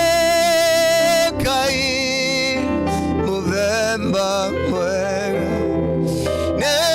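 Gospel worship music: a solo voice singing long held notes with vibrato over sustained keyboard chords.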